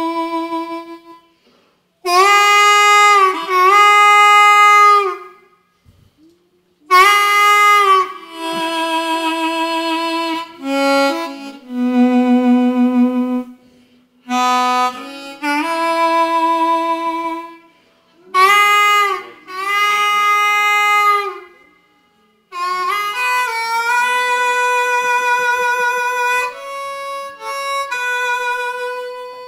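Solo blues harmonica, cupped in both hands against a microphone, playing a train-imitation piece. It plays phrases of held notes, several bending in pitch, with short breaks between phrases.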